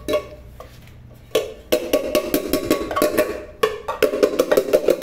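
Rapid metallic taps with a ringing note: the dented rim of a pressure cooker is being struck against a small metalworking anvil (tás), bringing back out the mouth that the fall had bent inward. A couple of taps come first, then from about a second and a half in a fast run of several strikes a second, with one short break.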